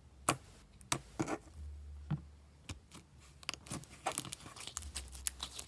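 Homemade slime being squished and stretched by hand for ASMR, making irregular sticky pops and clicks.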